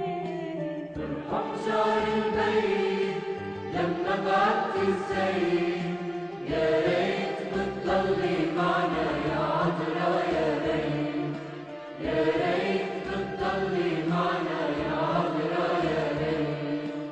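Arabic devotional hymn to the Virgin Mary: singing over a musical accompaniment, with steady low notes held underneath.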